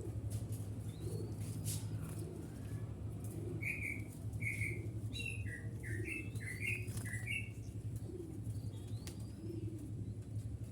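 Tame doves cooing in a low voice, a coo about once a second, while a small bird gives a quick run of about nine chirps in the middle; a steady low hum runs underneath.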